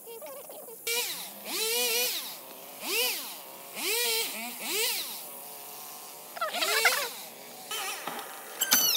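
Gasoline chainsaw cutting through a fallen oak limb, revved up and down in a series of about five or six throttle bursts, each one rising and then falling in pitch.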